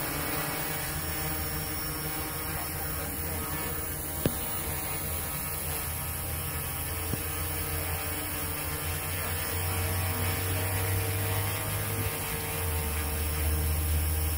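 Quadcopter hovering overhead, its four motors and propellers making a steady hum of several tones whose pitch steps a little a couple of times as the motors adjust. A single sharp tick comes about four seconds in.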